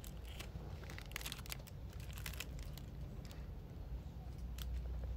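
Thin clear plastic packaging bags crinkling as they are handled, in short scattered crackles.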